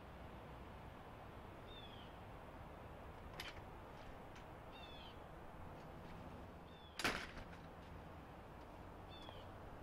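Faint outdoor ambience with a small bird chirping several times in short falling notes. A click about three and a half seconds in as the glass-panelled door's latch is pushed open, and a louder sharp bang about seven seconds in as the door shuts.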